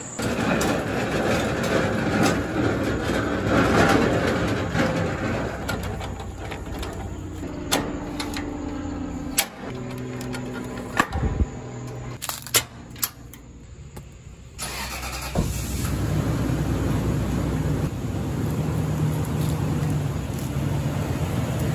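Vehicle engine running, dropping lower in the middle stretch where a few sharp metal clicks and clanks sound, then running steadily again from about two-thirds of the way in.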